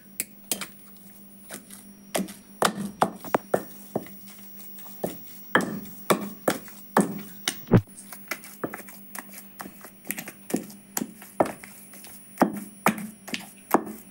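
Wooden pestle pounding minced chicken in a stone mortar, beating the meat, spices and butter into a smooth paste for rista: irregular dull thuds about two a second, with brief pauses.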